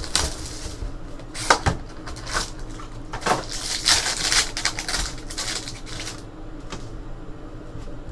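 Foil trading-card pack wrapper being torn open and crinkled by hand, in a run of crackling bursts that die down after about six seconds.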